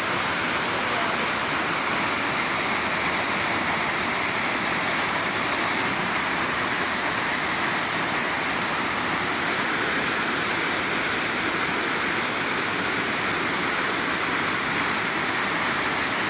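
Waterfall pouring into its pool, a steady full rush of falling water.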